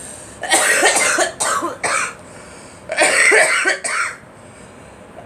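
A girl coughing in two fits, several hard coughs in quick succession each time, with a short pause between them. She puts the coughing down to pollen.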